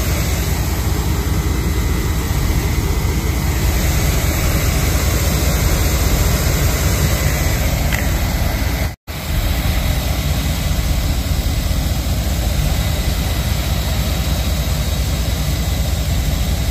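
Vehicle engine running loud and steady, with a dense low rumble. The sound cuts out for a moment about nine seconds in.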